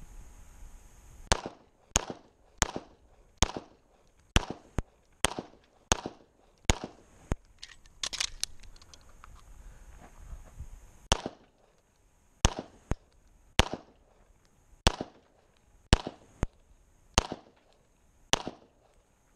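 STI Trojan single-stack pistol in .40 firing major-power-factor loads: a fast string of more than twenty sharp shots, many in pairs about half a second apart, with a break of about two seconds near the middle.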